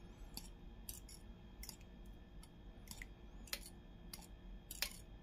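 A metal spoon clinking against a ceramic bowl while stirring a runny egg mixture: faint, irregular light clicks, about two a second.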